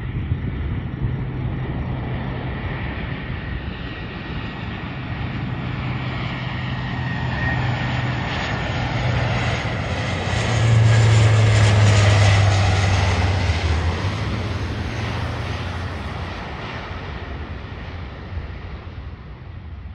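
Lockheed KC-130J Hercules's four turboprop engines with six-bladed propellers flying low overhead on approach: a low propeller drone with a higher whine, growing louder to a peak about halfway through, then fading as the aircraft heads away toward the runway.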